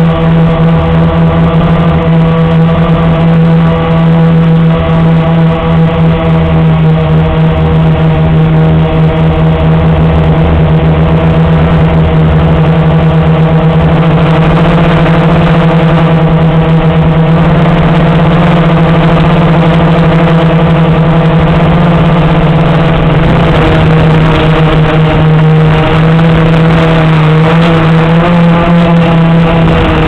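Blade 350 QX quadcopter's four brushless motors and propellers whining steadily in flight, heard very close and loud from the camera mounted on the craft. The pitch wavers and dips slightly about two-thirds of the way through.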